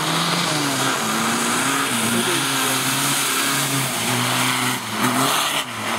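Race car's engine revving hard as the car accelerates through and out of a corner, its pitch climbing and dropping back several times with throttle and gear changes. Under it runs a steady hiss of tyre spray and rain on a wet road.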